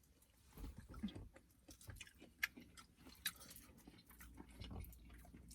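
Faint chewing and mouth sounds of someone eating, with scattered small clicks and soft smacks.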